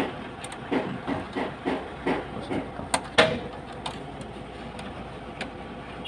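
A thin metal pick scraping and clicking in the relay socket terminals of a truck's fuse and relay box. There is a quick run of short scrapes for about three seconds, with two sharper clicks near the end of the run, then only a faint steady hiss. The loose socket terminals are being pinched tighter to cure a loose contact.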